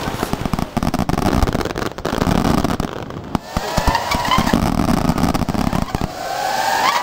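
Fireworks display: aerial shells bursting and crackling in quick succession over a continuous low rumble.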